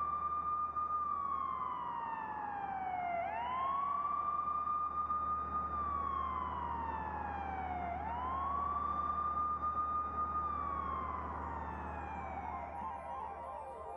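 Police car siren wailing. Each cycle climbs quickly to a high tone, holds it for about two seconds, then slides slowly down, repeating about every five seconds over a steady low hum.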